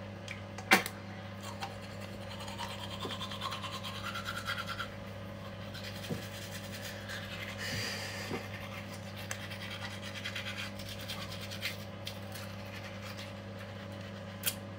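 Soft, uneven scrubbing of a toothbrush on teeth, brushed by hand with the electric toothbrush's motor dead. A steady low hum runs underneath.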